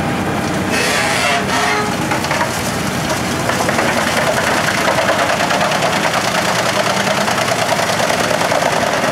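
Tracked forestry harvester (Woody WH40 combination harvester-yarder) running its diesel engine and hydraulics as its harvester head works logs. A brief hiss comes about a second in, and from about three and a half seconds in a fast, even rattle sets in over the engine.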